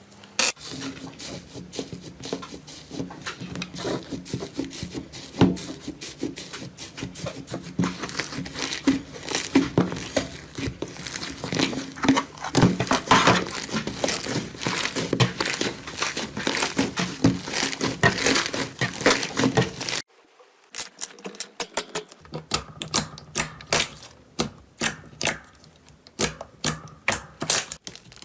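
Slime being squeezed, poked and stretched by hand, giving a dense stream of sticky clicks and crackling pops. The sound cuts off abruptly about two-thirds of the way through, then the clicking and popping starts again with a different slime.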